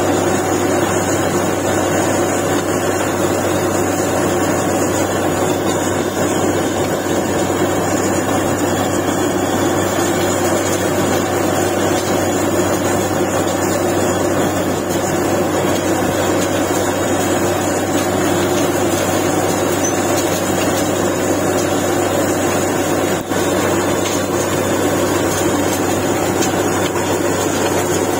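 Truck-mounted borewell drilling rig running steadily under load, its diesel engine and air compressor working as it drills and blows water and cuttings up out of the bore.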